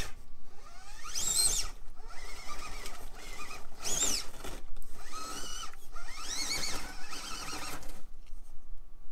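Furitek Micro Komodo brushless motor in a Traxxas TRX-4M crawler whining up and falling back with hard throttle bursts, three times, over the whir and grind of the drivetrain under load on a climb.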